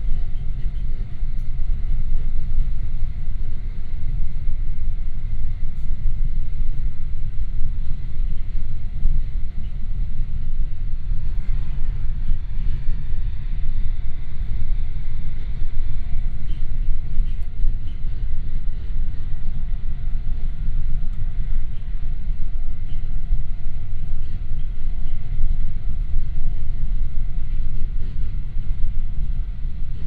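Inside a moving passenger train carriage: the train's steady low rumble from running along the rails, with a faint steady whine above it.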